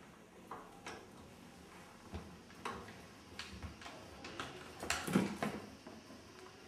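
Scattered light clicks and rustles of a metal-and-leather leg brace and its straps being handled, with a louder clatter about five seconds in.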